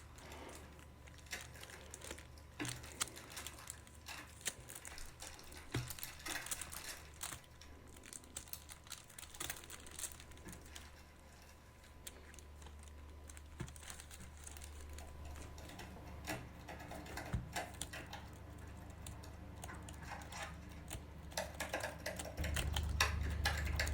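Keys of a Logitech K780 multi-device keyboard being typed on, irregular light clicks, over a low steady hum that gets louder near the end.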